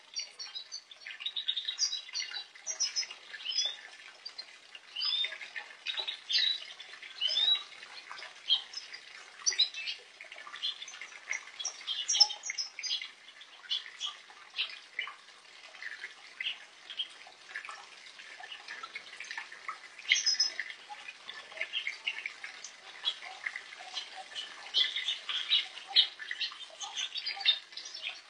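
A flock of European goldfinches twittering with many short, overlapping high calls, along with water splashing as they bathe in a shallow bath.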